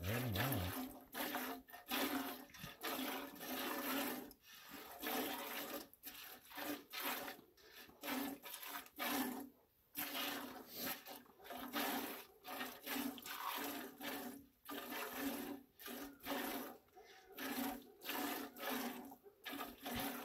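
Milk squirting in repeated jets into a stainless steel stockpot as a cow is milked by hand, two milkers working the teats in a steady rhythm of short splashy squirts.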